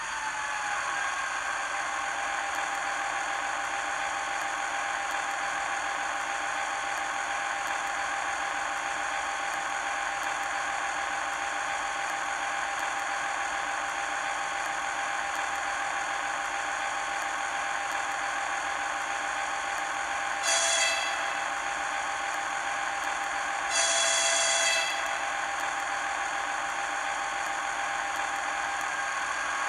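Sound decoder in an HO-scale model of the JŽ 666-001 General Motors diesel locomotive, playing a diesel engine that settles and idles steadily through the model's small speaker. About two-thirds of the way through the horn sounds twice, a short blast and then a longer one about three seconds later; near the end the engine note starts to rise.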